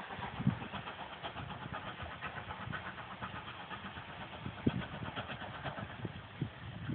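GWR 4300-class 2-6-0 steam locomotive No. 5322 working a passenger train far off, its exhaust heard as a run of faint, quick chuffs. A few low thumps come through now and then.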